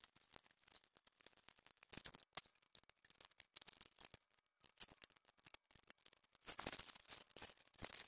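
Faint scattered clicks and scrapes from hand work on an anvil stand: a cork pad being trimmed and a chain being fitted around the anvil and log. A denser, louder stretch of scraping and rattling comes near the end.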